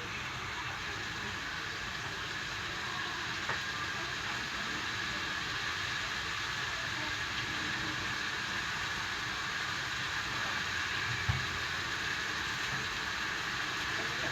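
Small dried anchovies frying in hot oil in a pan: a steady sizzle, with a light knock about eleven seconds in.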